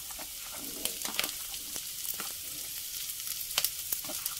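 Onion and garlic sizzling in hot oil in a wok, with a few sharp clicks and scrapes of a metal spatula as chopped bird's eye chillies are pushed into the pan.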